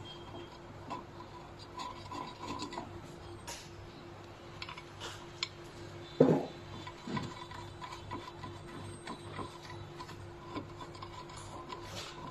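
Hands handling a plastic machine housing and pulling a ribbon cable through it: rubbing and scraping with scattered small clicks, and one louder thump about six seconds in. A steady low hum runs underneath.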